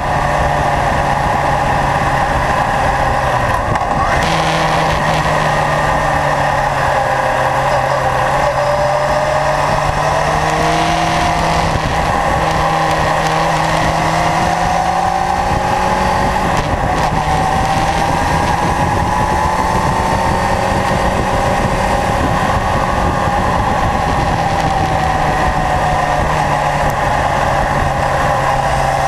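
Kawasaki Zephyr's air-cooled inline-four engine running on the move, its pitch rising and falling as the throttle opens and closes through the bends, with a sudden change about four seconds in. A steady rush of wind and road noise runs underneath.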